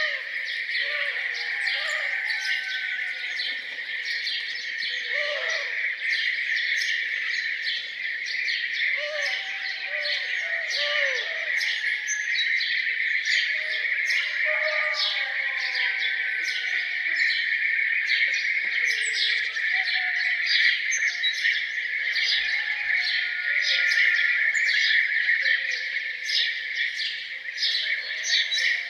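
A chorus of birds chirping and singing, with many quick overlapping chirps and a continuous high trill beneath them. Lower, arching calls come and go through the first half.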